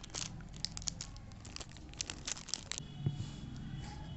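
Clear plastic packet crinkling and crackling as hands handle adhesive nipple covers in it, a quick run of sharp crackles for the first three seconds, then fewer.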